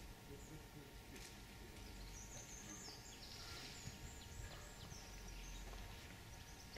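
Faint outdoor ambience with a few short, high bird chirps about two to three seconds in.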